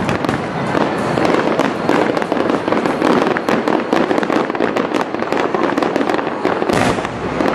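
Fireworks display: a dense, near-continuous barrage of overlapping shell bursts and crackling.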